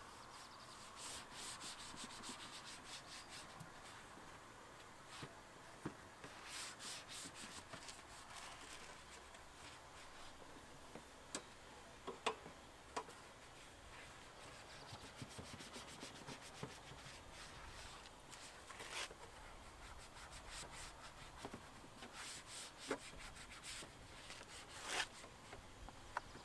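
Foam applicator sponge rubbing over the hard black plastic engine-bay cover, working on protectant dressing in faint, quick back-and-forth strokes that come in bursts. A few light clicks of the sponge or fingers against the plastic.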